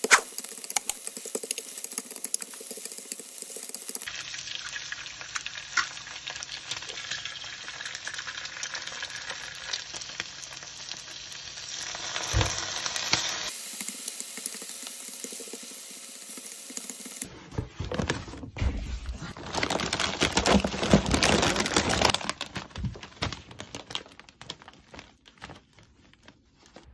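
Chopped green onions and then eggs sizzling in a frying pan, stirred and scraped with wooden chopsticks. The sizzle changes abruptly several times and is loudest and most crackly about two-thirds of the way through.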